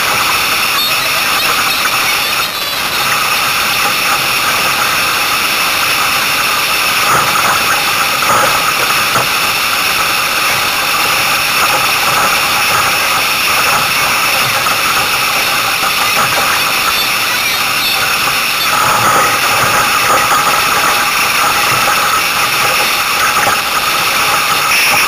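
Steady, loud rushing hiss of water and wind streaming past an F16 catamaran hull sailing at speed, heard close up from the bow.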